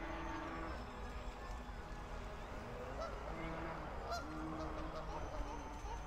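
Geese honking, a few short calls about halfway through.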